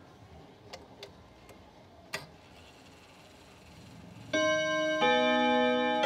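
Chime of a French Odo 36 clock: a few faint clicks, then about four seconds in its hammers strike the steel gong rods, two notes about half a second apart, ringing on with a round, long sustain.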